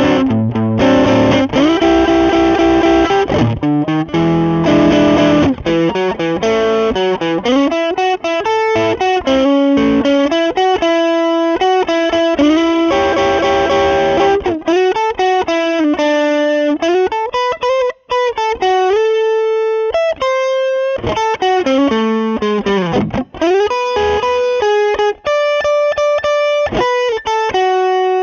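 Squier Jazzmaster electric guitar played through a Lovepedal Blackface Deluxe overdrive pedal with the gain at about three o'clock. It starts with chords for the first few seconds, then moves to single-note lead lines with string bends and vibrato.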